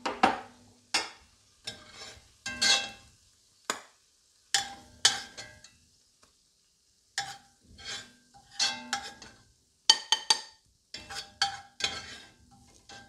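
Metal spoon scraping and knocking against an enamelled casserole and a ceramic bowl while caramelized onions are scooped out: a dozen or so irregular strokes, several ending in a short ringing clink.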